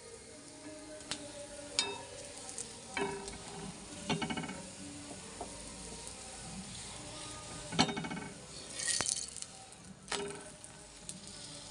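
Aloo paratha frying in oil on a tawa griddle, a light sizzle, with a metal spatula scraping and tapping on the griddle several times as the paratha is pressed, and a sharper scrape as it is flipped near the end.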